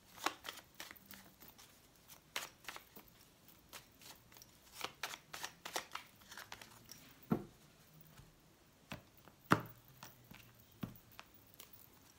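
A deck of Lenormand cards being shuffled by hand: quiet, irregular clicks and flicks of cards, with two louder knocks a little past halfway and about three-quarters of the way in.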